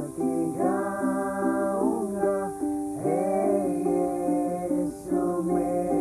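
Several voices singing a song together to a ukulele accompaniment, in held, gliding notes.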